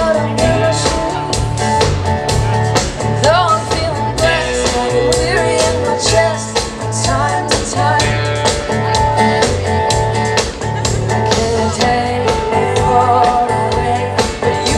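Live pop song: a woman singing while playing an acoustic guitar, backed by keyboard and a band with a steady beat.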